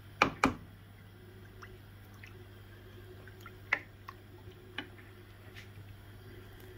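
Liquid being added to an aluminium pot of lamb tripe. Two sharp knocks come near the start, then scattered drips and small clicks over a faint steady hum.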